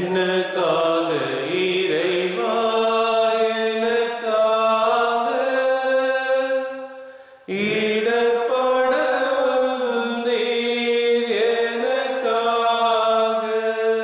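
A devotional hymn sung in two long phrases of about seven seconds each. The pitches are held steady and each phrase fades at its end.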